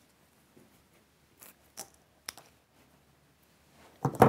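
Florist's scissors snipping foliage stems: a few separate sharp clicks, the loudest near the end.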